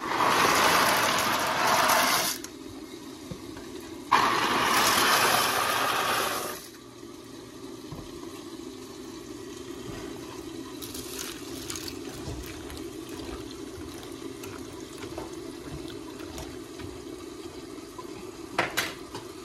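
Dry rotini pasta poured from two cardboard boxes into a pot of boiling water: two rushing, rattling pours of about two and a half seconds each, a couple of seconds apart. The water then bubbles steadily at a rolling boil.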